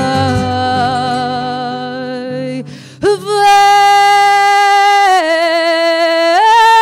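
Female fado singer holding long notes with a wide vibrato over Portuguese guitar and guitar accompaniment, which falls away about two and a half seconds in. After a brief break she sings on unaccompanied, holding long wavering notes that step down and then back up.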